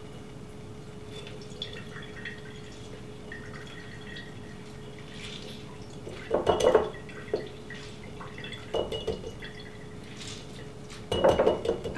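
Half a lemon squeezed by hand through a mesh strainer into a glass mason jar: juice dripping and squishing into the jar in a few short bursts. A faint steady hum runs underneath.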